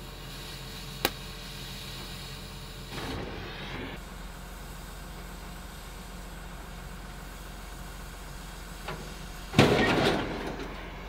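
Oxy-fuel cutting torch hissing steadily as it cuts through the rusty leaf-spring mounts under a car, with a sharp click about a second in. Near the end comes a loud crash.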